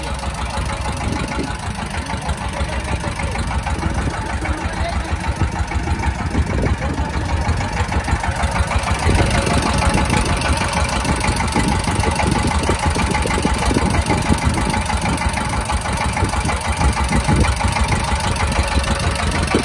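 Boat engine running steadily with a rapid chugging beat, a little louder from about nine seconds in.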